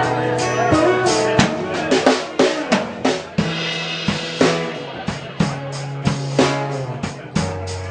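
Live rock band playing: a drum kit keeps a steady beat on snare and bass drum under strummed acoustic guitars.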